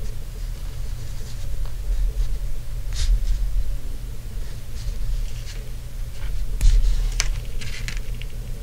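Fingers handling monofilament fishing line and a small rubber line stopper on its threader: faint rustling with a few light clicks, one about three seconds in and two around seven seconds, over a steady low hum.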